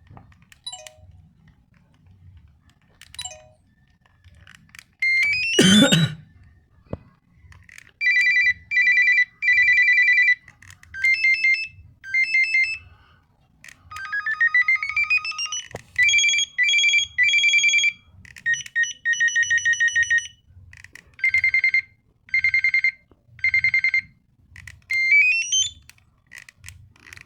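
Samsung SCH-N480 mobile phone's speaker playing its built-in alert tones one after another: short electronic beeps, repeated ringing bursts and quick rising chirps, with short pauses between tones.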